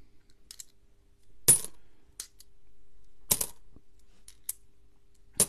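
Australian 20-cent coins clinking against one another as they are handled and slid off a stack while being searched: a loud chink about one and a half seconds in, then several lighter clicks.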